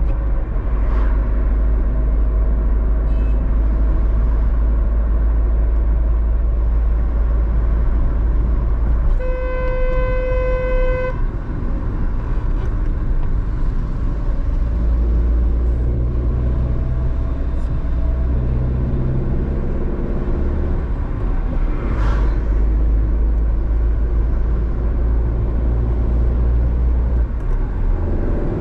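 A car driving along a highway, with a steady low rumble of road and engine noise. About nine seconds in, a vehicle horn sounds one steady note for about two seconds.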